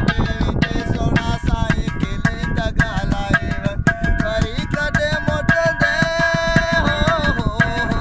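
A man singing a Sindhi folk song, holding long wavering notes, over fast, dense hand-drum percussion.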